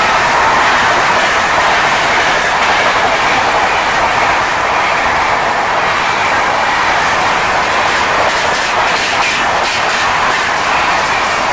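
Steady wheel-and-rail noise and rushing air from two express trains running side by side on parallel tracks, heard through the open door of one as the overtaking Rajdhani Express's coaches pass close by. A run of sharp clicks from the rails comes about eight to ten seconds in.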